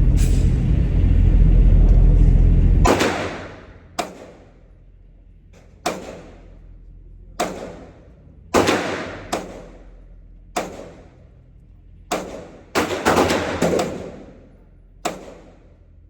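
A steady low rumble of vehicle road noise cuts off about three seconds in. It is followed by about a dozen sharp gunshots at a shooting range, fired singly at irregular intervals of roughly one to one and a half seconds, each with a short echo.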